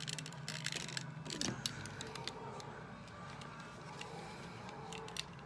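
Hard plastic Transformers figure parts clicking and snapping as they are handled and pegged together, with a quick run of clicks in the first couple of seconds and scattered ones after.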